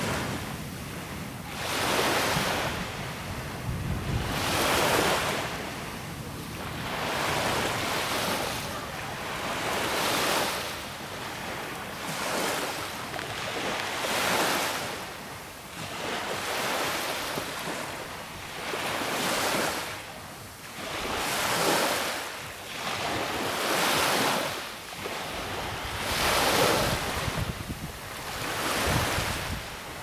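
Black Sea waves breaking and washing in, a surge of hiss about every two to three seconds, with some wind on the microphone.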